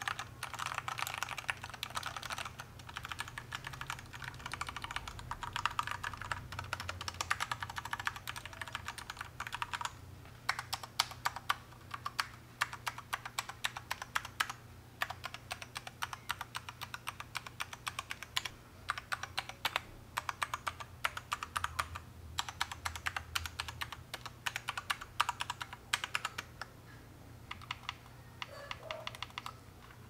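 Royal Kludge RK96 mechanical keyboard with brown switches and built-in dampener foam being typed on, with a dampened sound. It starts as fast two-handed typing, then from about ten seconds in single keys are pressed one at a time as separate clacks, with short runs between.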